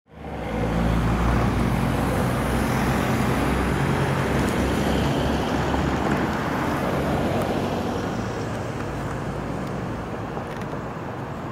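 Road traffic at the level crossing: a vehicle engine's low steady drone with road noise. It eases off a little after about eight seconds.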